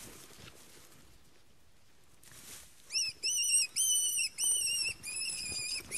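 A wild rabbit, seized by a lurcher, screaming in distress: a run of short, high-pitched squeals, about two a second, starting about halfway in.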